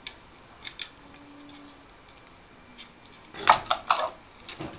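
African grey parrot imitating the sound of bubbles with short popping clicks: a couple near the start, then a quick run of louder pops about three and a half seconds in and a few more near the end.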